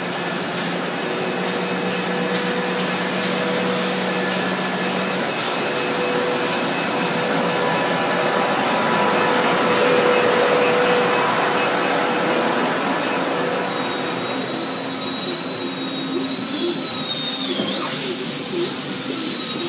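Steady machine-shop noise from running CNC machine tools and an automatic robot machining cell: a constant mechanical hum and hiss with several steady tones. A thin high whine joins about two-thirds of the way through, and a louder hiss rises near the end.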